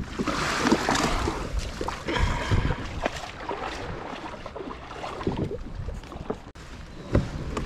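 Choppy sea splashing and slapping against an inflatable kayak, loudest in the first second or so, with a few short knocks.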